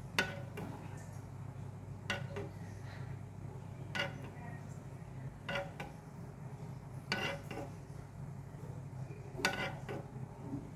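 Metal ladle clinking against a granite-coated frying pan as it scoops hot sugar syrup and pours it over skewered fruit: sharp knocks every second or two, some in quick pairs, over a steady low hum.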